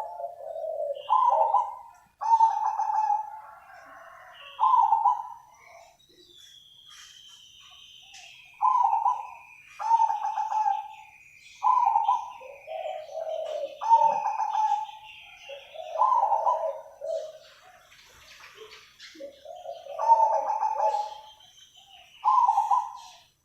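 Zebra dove (perkutut) singing its cooing song: short cooing phrases repeated one after another, each a higher note falling to lower ones, with a pause of a few seconds about a quarter of the way in.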